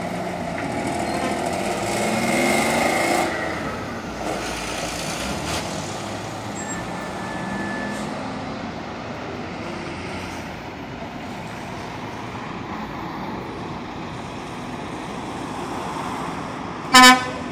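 Lorry diesel engines passing, the engine note rising as a truck pulls away and accelerates over the first few seconds, then a steady drone of engines and traffic. Near the end comes one short, loud truck horn blast.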